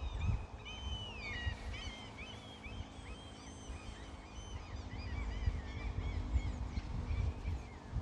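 Wild birds chirping, many short high calls overlapping throughout, over a steady low rumble.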